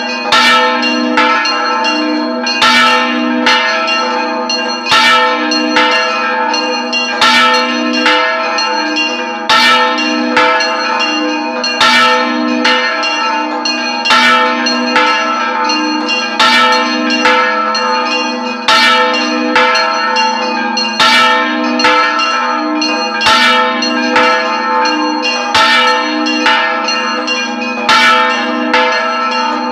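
A large church bell swung full circle (rung "al vuelo"), its clapper striking about once a second with strokes alternating louder and softer, over a continuous ringing hum that swells and fades as the bell turns.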